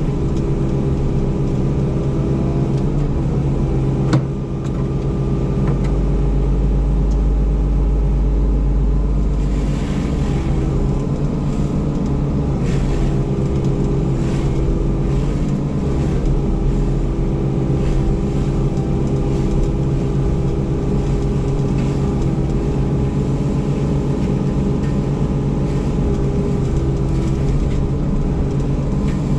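Motor vehicle engine running steadily, as heard while driving, with a low rumble that swells for a few seconds and a single knock about four seconds in.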